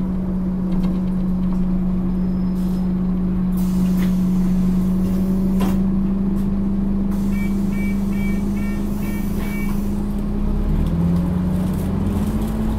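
Scania OmniCity bus engine running steadily, heard from inside the passenger saloon, with a few sharp clicks. Midway there is a run of about six short high beeps, and near the end the engine note rises as the bus pulls away.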